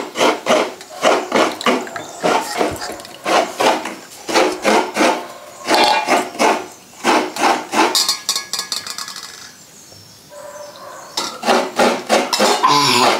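Rhythmic hand scraping, about three strokes a second, with a quieter stretch of a second or two shortly before the end, after which the strokes resume.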